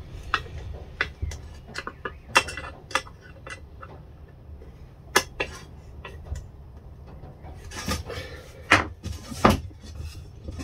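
Hand screwdriver tightening a screw in a wooden block on an aluminium T-track rail, with scattered small clicks and knocks of wood and metal being handled. A cluster of sharper knocks comes near the end as wooden blocks are handled over the rail.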